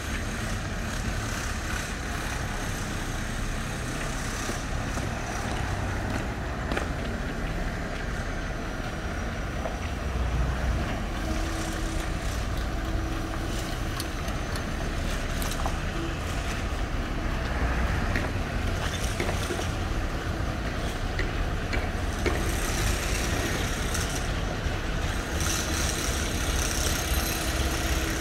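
Diesel engine of a large sleeper coach running at low revs as the bus moves slowly: a steady low rumble with no sharp changes.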